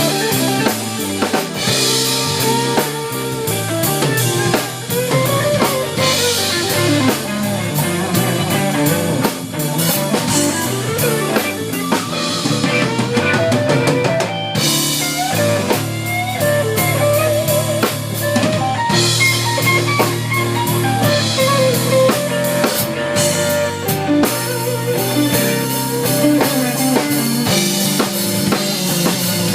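Band music without vocals: a drum kit keeping a steady beat under guitar.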